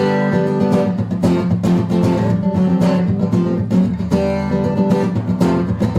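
Live blues music: guitar strumming an instrumental passage between sung lines of the song.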